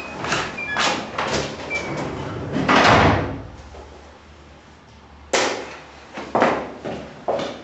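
Footsteps and door sounds inside a building: a run of steps about two a second with a few short squeaks, then a louder door-like bang about three seconds in. Three more sharp knocks or thuds follow about a second apart near the end.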